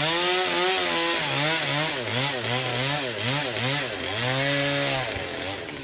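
Chainsaw cutting through a branch, the engine's pitch repeatedly sagging and recovering as the chain bites into the wood. The saw stops about five seconds in, followed by a few sharp cracks.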